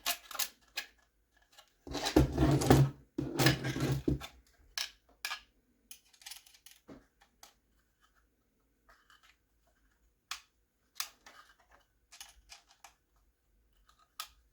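Small plastic parts and screws being handled on a workbench: scattered light clicks and taps, with two louder stretches of rubbing and handling noise about two seconds in.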